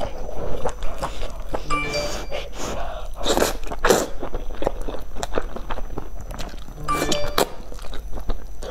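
Close-miked noodle slurping and chewing: loud slurps about two seconds in, around three and a half seconds and near seven seconds, with wet chewing between them.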